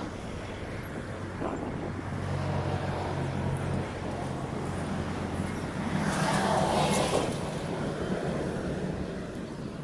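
Road traffic on a town street: car engines humming and tyre noise, with one vehicle passing close and loudest about six to seven seconds in before fading.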